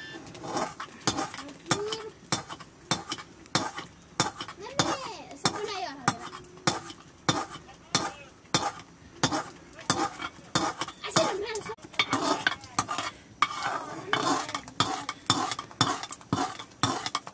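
A metal spoon stirring thick maize-flour porridge in a metal pot, knocking and scraping against the pot's side in a steady rhythm of about two strokes a second.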